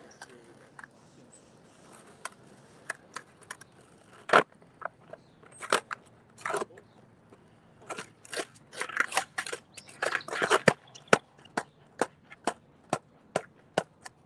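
Freestyle skateboard clacking against hard ground: single sharp knocks in the first half, a dense cluster of clatter past the middle, then an even run of about two taps a second, the rhythm of a board being bounced on its tail.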